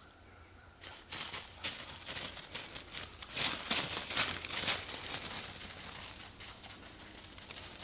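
Footsteps crunching through snow over dry leaf litter, a dense crackling that starts about a second in, is loudest midway and eases off near the end.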